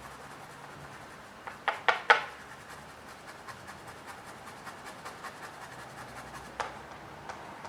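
Old toothbrush scrubbing the alcohol-soaked, clogged ear speaker grill of a Samsung S8 phone, heard as a run of faint, fine scratching strokes. A few sharp clicks come about two seconds in.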